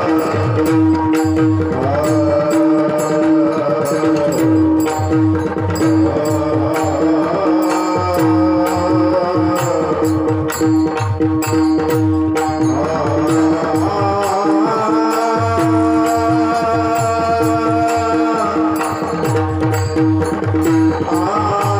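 Kirtan music: a held harmonium-style drone note under a wavering melody, with a steady fast rhythm of hand-drum strokes and sharp metallic clicks.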